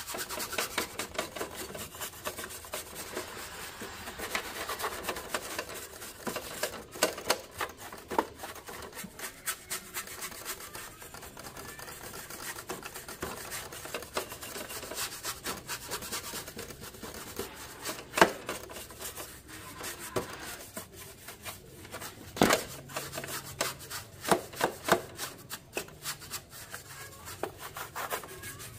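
Continuous rubbing and scraping, with many sharp clicks and knocks scattered through it, from hand work on a cassette player's parts during its restoration.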